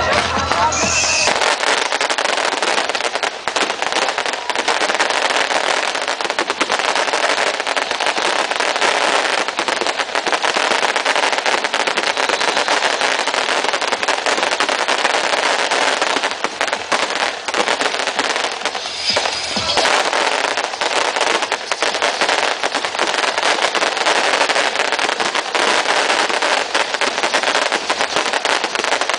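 Fireworks crackling continuously, a dense stream of rapid sharp pops and crackles with no break.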